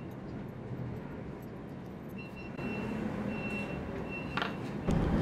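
Background rumble like a vehicle's engine, with a faint, rapid high-pitched beeping like a reversing alarm from about two seconds in to about four seconds in. A faint click comes a little after four seconds.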